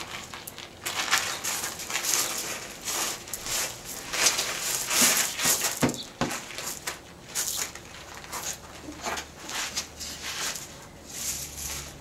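Small landscape gravel crunching and rattling in irregular bursts under a baby's hands, knees and shoes as he shifts, moves across it and pulls himself up.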